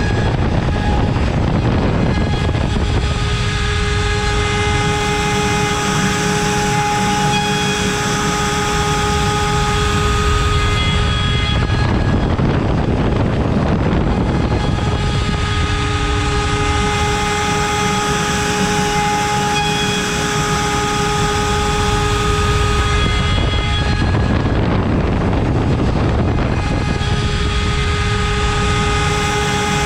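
CNC router spindle running at 24,000 rpm while an 8 mm cutter mills wood. A steady high whine alternates with rougher, noisier cutting about every twelve seconds as the cutter moves through the material.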